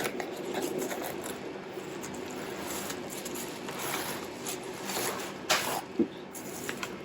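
Keyboard box being opened by hand: packaging rustling, sliding and scraping, with a louder rustle about five and a half seconds in and a short knock just after.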